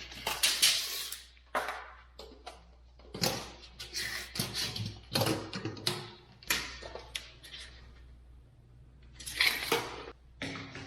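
Irregular knocks, clicks and scrapes of hard parts being handled and set down, typical of kitchen cabinet assembly work, with a louder cluster of knocks about nine seconds in.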